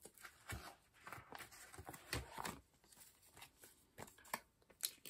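Faint rustling and small clicks of plastic binder sleeves and paper photocard inclusions being handled, a few short scattered ticks among them.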